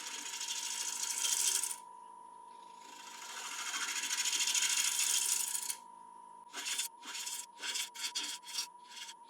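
Wood lathe running with a steady whine while a 3/8 inch ball gouge cuts dry damson: two long hissing cuts, then a series of short, quick cuts.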